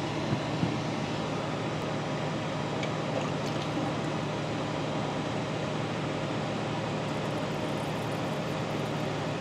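Steady machine hum and hiss of background equipment, with a couple of small knocks about half a second in.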